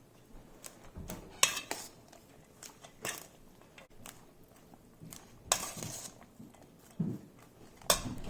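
A utensil clinking and scraping against a bowl while shredded jicama, bean sprouts and chives are tossed together: a handful of irregular clinks and scrapes, one longer scrape about halfway through.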